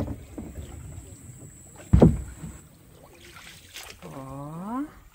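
Kayak paddling: paddles dipping and knocking against the hull, with one loud thump about two seconds in. Near the end comes a short rising tone.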